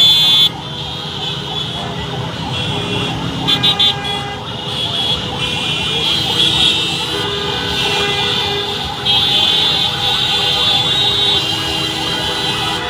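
Vehicle horns honking over and over, some held and some in short blasts, over busy street traffic and engine noise.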